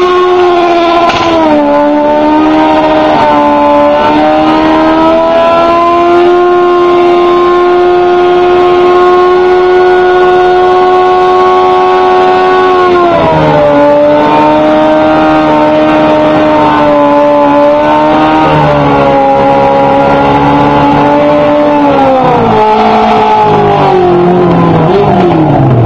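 Motorcycle engine held at high revs in a smoky tyre burnout. It holds one steady high note for about thirteen seconds, then dips and wavers. Near the end the revs slide down.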